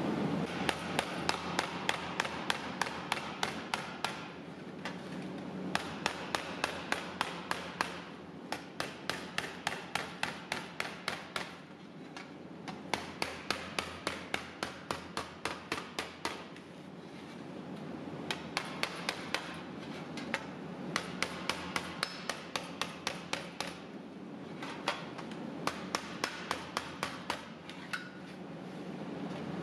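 A hammer striking the edge of a sheet-metal fender panel over a rounded steel anvil, rounding the edge over. The blows come in quick runs of about three to four a second, with short pauses between runs.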